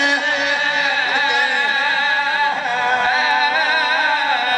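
A man's voice singing a mournful lament through a microphone, holding long notes in a slow, wavering melody without a break.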